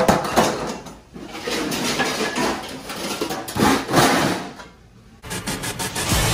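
Dishes clattering and knocking, an irregular run of clanks while dishware is handled at a restaurant dishwashing station. After a short lull, music comes in near the end.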